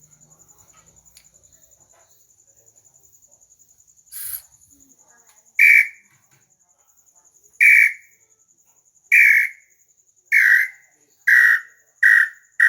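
A hand-made bird-call whistle (pio) being blown in a series of whistled notes, each at the same pitch. A faint first note comes about four seconds in, then loud notes that come faster and shorter toward the end. A steady high insect trill runs underneath.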